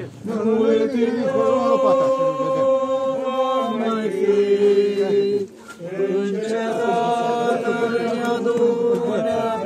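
A group of voices singing a slow hymn in long held notes, with a brief pause between lines about five and a half seconds in.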